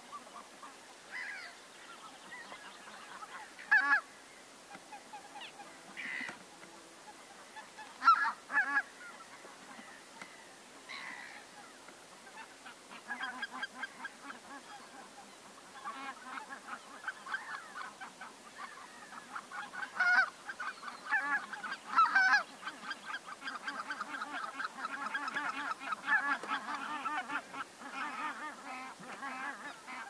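Flock of greater white-fronted geese calling: scattered honks with a few loud single calls, then after about twelve seconds a steady chatter of many overlapping calls.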